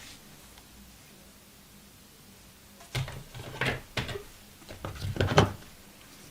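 Hands handling a phone box and its packaging: a run of short clicks, knocks and scrapes about three seconds in, the loudest near the end.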